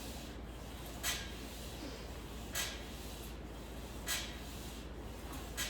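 A man's short, sharp exhaled breaths through the mouth, one with each rep of a set of seated cable rows, four of them about a second and a half apart.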